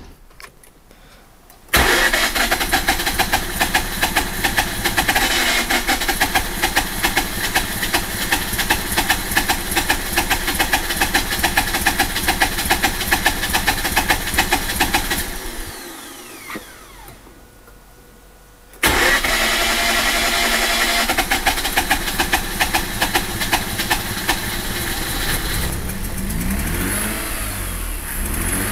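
Mazda RX-8's Renesis twin-rotor engine running very rough, with an uneven pulsing air-suction noise; the fault is a broken rotor side seal. The engine comes in suddenly about two seconds in, dies away about halfway through, and comes back abruptly a few seconds later.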